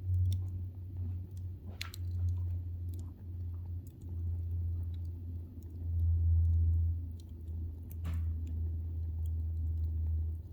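Wood fire crackling, with a few sharp pops over a low steady rumble.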